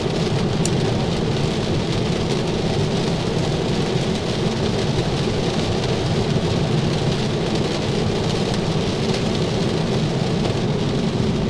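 Heavy rain falling steadily on a car's roof and windshield, heard inside the cabin, mixed with the low steady noise of the car driving on the wet road.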